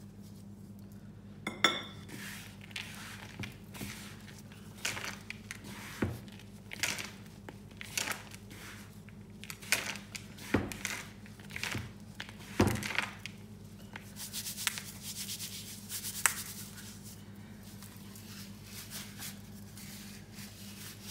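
Gloved hands mixing dried fruit into a crumbly flour, suet and sugar mix in a plastic mixing bowl: irregular rustling and scraping, with a few knocks against the bowl.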